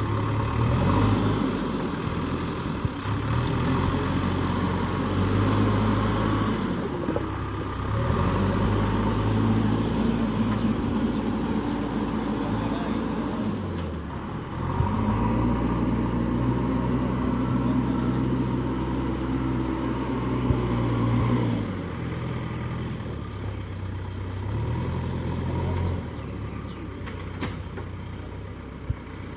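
JCB backhoe loader's diesel engine running and being loaded in spells as the hydraulics are worked: the note swells and eases several times and sags briefly under load about halfway through. The machine is being load-tested after a repair.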